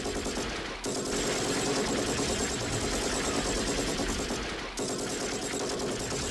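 Rapid automatic gunfire in a continuous stream of shots, briefly dipping about a second in and again just before five seconds.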